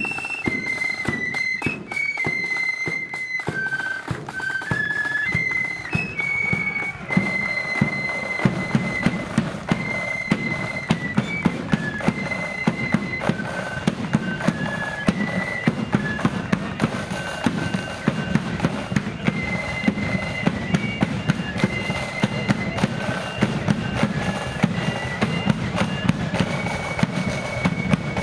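Blood-and-thunder flute band playing a marching tune: massed flutes carry the melody over rattling snare drums. About seven seconds in, the full band comes in louder, with the heavy bass drum thumping about twice a second.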